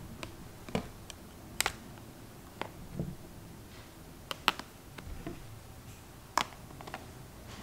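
iPhones clicking and tapping against each other and the countertop as they are stacked by hand: a handful of short, sharp glass-and-metal taps at uneven intervals, the loudest about four and a half and six and a half seconds in.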